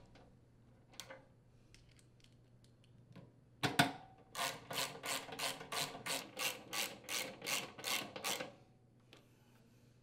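Ratchet wrench with a socket tightening the blower motor's mounting screws on the sheet-metal blower housing. A few faint clicks, a single knock, then from about four seconds in an even run of ratcheting strokes, about three to four a second, that stops near the end.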